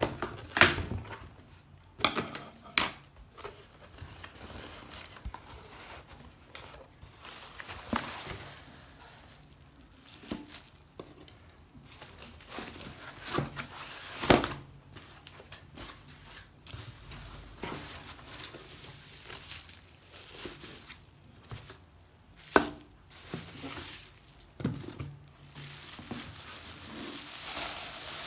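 Unpacking an electric cooker: plastic film and bubble wrap crinkling and rustling as they are handled and pulled open, with cardboard box handling and scattered sharp knocks as parts are picked up and set down.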